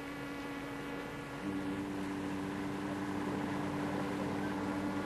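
Sustained synthesizer chord of dramatic background music. A lower note joins about one and a half seconds in and the chord swells.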